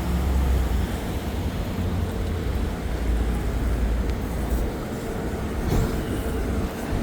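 City street traffic: a steady low rumble of vehicle engines, with a faint steady hum coming in about two-thirds of the way through.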